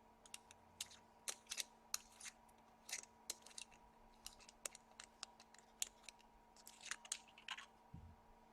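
Faint, irregular small clicks and light scrapes from hands handling a stabilized-wood squonk box mod around its battery cap, with a low thump near the end.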